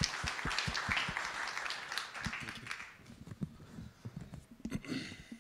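Audience applauding, the clapping dying away about three seconds in, followed by a few faint knocks.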